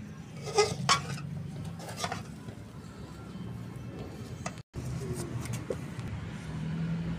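Metal spoon clinking against dishes: a few sharp clinks in the first two seconds, over a steady low hum.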